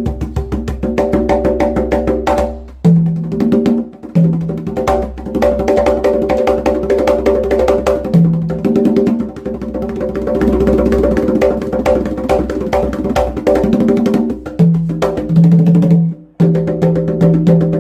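Handmade JOIZ Percusión congas played by hand in a fast, dense rhythm, with steady pitched music sounding under the strokes. The playing breaks off briefly three times: about 3 s in, about 4 s in, and near the end.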